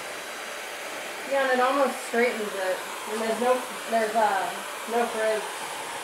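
ULESM WY602-A ionic hair dryer with a high-speed brushless motor, running steadily and blowing air down onto hair. From about a second in, a voice speaks faintly over the steady rush of air.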